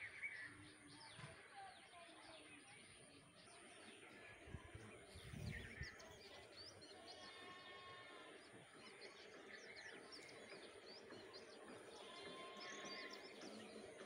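Quiet rural outdoor ambience with faint birds chirping now and then, and a brief low rumble about five seconds in.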